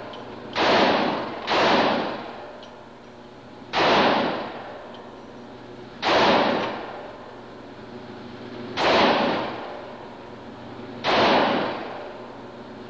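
Pistol fired six times at an irregular pace, one to three seconds between shots, each shot ringing out with a long echo off the walls of an indoor range.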